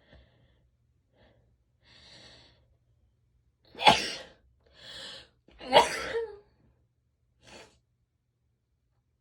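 A woman sneezing twice, about four and six seconds in, each sneeze preceded by a sharp gasping inhale, then a short breath.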